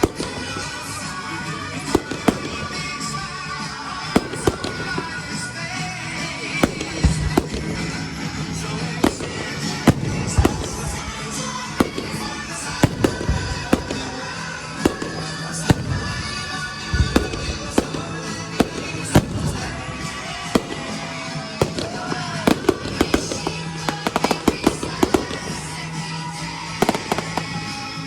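Fireworks display: many sharp bangs of shells bursting in quick, irregular succession throughout, with music playing underneath.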